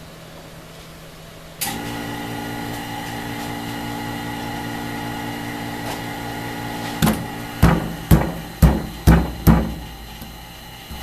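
A vacuum pump switches on about one and a half seconds in and runs with a steady hum, pulling vacuum on a CNC router's vacuum fixture. Near the end come six sharp knocks, roughly half a second apart.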